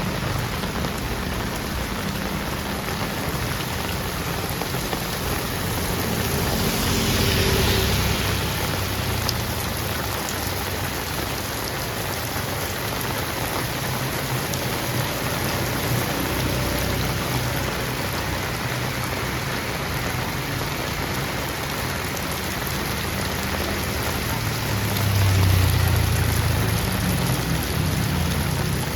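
Heavy rain falling steadily on a street. A louder low swell comes about a quarter of the way in and again near the end.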